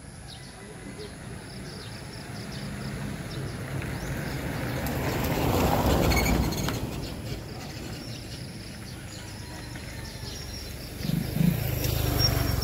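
A motor vehicle passes by, its noise swelling to a peak about six seconds in and then fading. Another engine sound rises near the end.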